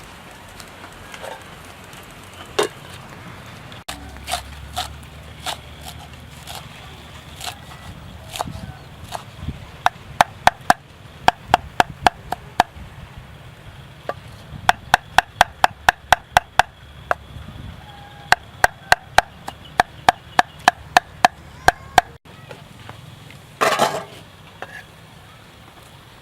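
Knife chopping on a wooden cutting board. A few scattered strikes come first, then fast, even runs of about four to five chops a second with short pauses between them, and a brief louder clatter near the end.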